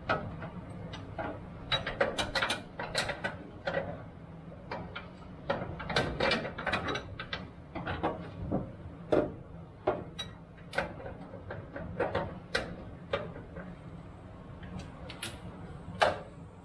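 Hand tools working the gas tank's mounting bolts under a 1979 Jeep Cherokee: irregular ratchet clicks and metallic clacks in short clusters, over a steady low hum.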